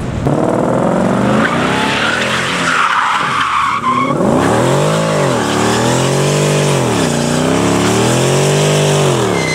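A car doing a burnout and donuts. Its tyres squeal and spin on the tarmac while the engine runs at high revs; from about halfway the engine revs rise and fall in repeated long swells as the driver works the throttle.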